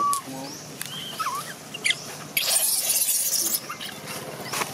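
Infant long-tailed macaque crying: a wavering high cry that breaks off just at the start, then a short falling squeal about a second in and faint high chirps. About two and a half seconds in, a loud hissing rush of noise lasts about a second.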